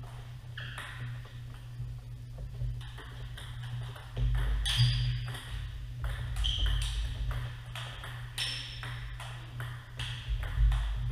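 Celluloid-type table tennis balls clicking off tables and paddles in irregular, sharp ticks from several tables, over a steady low hum.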